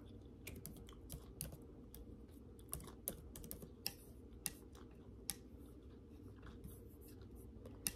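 Laptop keyboard being typed on: faint, irregular key clicks.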